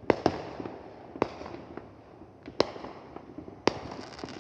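Aerial fireworks going off: a quick pair of sharp bangs at the start, then three more single bangs spread over the next few seconds, with fainter pops and crackle between them.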